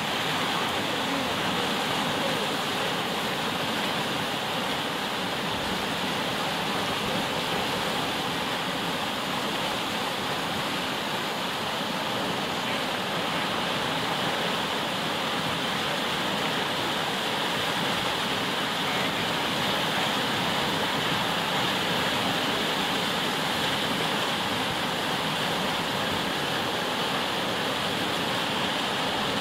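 Steady rushing of whitewater from a standing wave in tidal rapids, an even, unbroken roar of fast-moving seawater.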